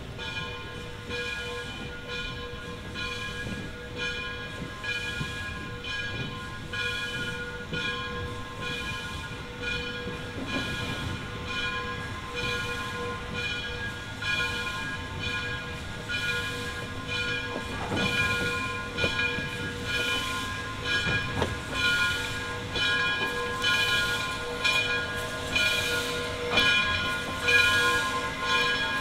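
Steam locomotive working, its exhaust chuffing at a steady beat of about one a second over a steady whine, getting louder toward the end as it draws closer.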